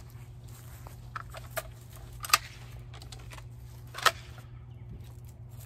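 Handling noise from a 12-gauge shotgun being readied and carried: a few sharp clicks and knocks, the loudest about two and a half seconds in and again about four seconds in, over a steady low hum.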